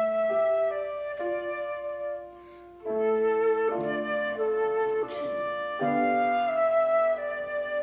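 Slow instrumental music with a flute-like tone: held chords of several notes that change every second or so, with a short break in the sound about two seconds in.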